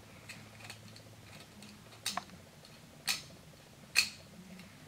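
Small plastic clicks from a jointed Mad Hatter doll figurine being handled and its parts moved: a few faint ticks, then three sharper clicks about a second apart.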